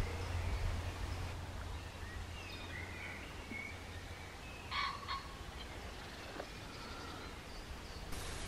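Woodland ambience: small birds chirping, with one louder, harsher bird call about five seconds in, over a low wind rumble on the microphone.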